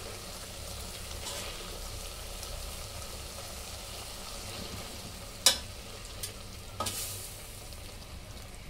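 A metal potato masher pressing and working soft boiled carrots in milk inside a pressure cooker, the mixture sizzling steadily over the flame. The masher clanks sharply against the cooker about five and a half seconds in, knocks lightly twice soon after, and clanks again at the very end.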